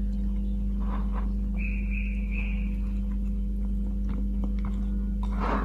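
Wire whisk clicking and scraping against a ceramic plate as flour and water are beaten into a thin slurry, over a steady low hum. A brief high tone sounds about a second and a half in.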